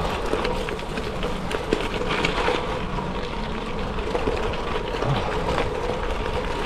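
Gravel bike rolling over loose gravel: a steady tyre roar with many small ticks and rattles from stones and the bike.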